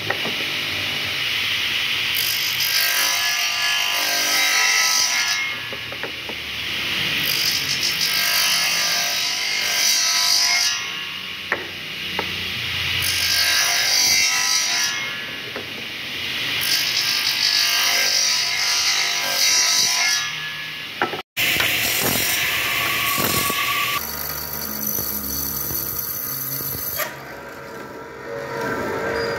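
Motor-driven bench circular saw crosscutting wooden door pieces: about four cuts of a few seconds each, with the motor running freely between them. About two-thirds of the way through, the sound switches to a mortising machine cutting a mortise in a wooden door stile.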